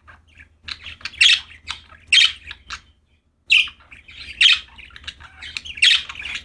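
Pet budgerigars chirping: a run of short, loud calls, with a brief pause about three seconds in.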